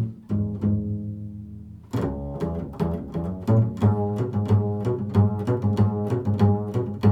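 Improvised instrumental music in a low register. A held low note sounds first, then about two seconds in comes a steady run of sharply attacked notes, roughly three a second.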